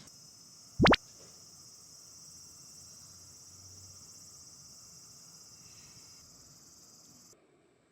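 Cicadas droning, a steady high buzz that cuts off suddenly near the end. Just under a second in, a brief loud rising chirp sweeps from very low to very high pitch.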